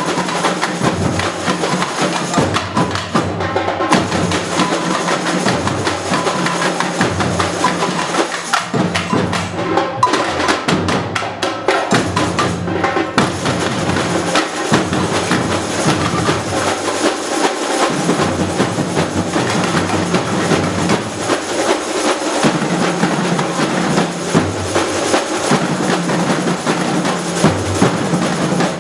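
Batucada samba drum ensemble playing live: deep surdo bass drums beating a steady pattern under dense, fast hand percussion of shakers and other small drums.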